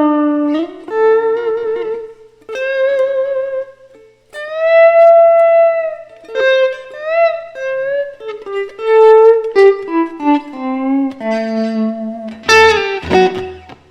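Electric blues guitar lead: single held notes bent and shaken with vibrato, a stepwise descending run, then strummed chords near the end.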